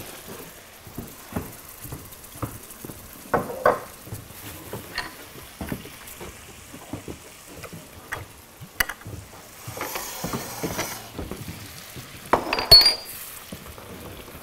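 Spatulas scraping and tapping in frying pans as food is stirred, with clinks of small bowls and a light sizzle. Louder clatters come about three and a half seconds in and near the end.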